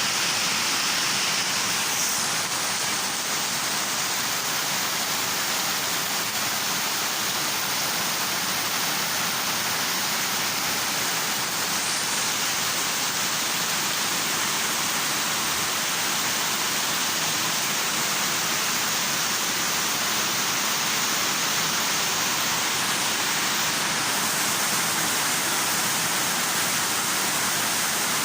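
Rain pouring down steadily in a constant, even hiss.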